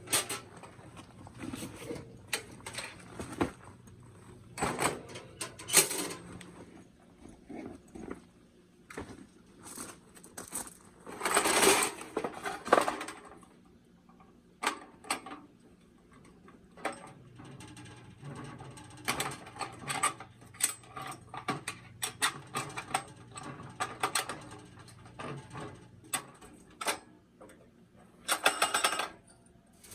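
Gear being handled by hand: irregular clicks, knocks and rustling, with a longer rasping burst about twelve seconds in and a shorter one near the end.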